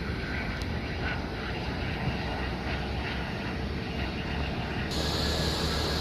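Boeing 757-200 jet engines giving a steady noisy rumble. About five seconds in, a brighter hiss cuts in suddenly and the sound grows a little louder.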